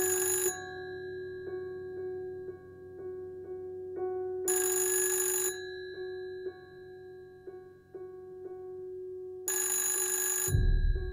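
A bell-like electric ring sounds three times, each about a second long and about five seconds apart. Under it runs soft music: a held low note with short notes about twice a second. A low thud comes near the end.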